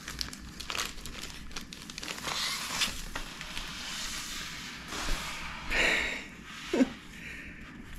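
Clear plastic sleeve and bag crinkling and rustling as a sheet of original comic art is handled and set down on the table, with scattered light clicks and a brief falling squeak about seven seconds in.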